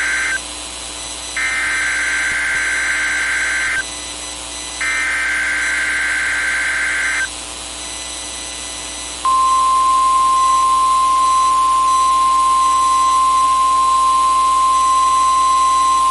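NOAA Weather Radio alarm test. The last of one burst and two more bursts of the SAME digital header, screechy two-tone data squeals each a couple of seconds long, are followed after a short pause, about nine seconds in, by the steady single-pitched 1050 Hz warning alarm tone that switches on weather radio receivers.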